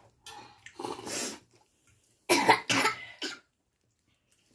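A person coughing: a rough breathy hack about a second in, then two sharp loud coughs in quick succession and a smaller one after, the kind of coughing set off by eating extremely spicy chicken ramen.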